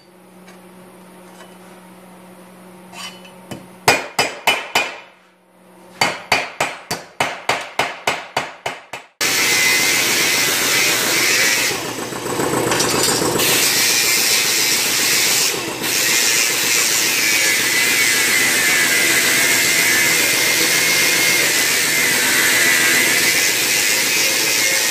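A hammer strikes sheet steel over a flat bar in quick runs of blows, forming a relieved (stepped) edge on a patch panel. About nine seconds in, a small right-angle grinder with a sanding disc starts and runs steadily against the steel edge with a high whine, and it stays the louder sound.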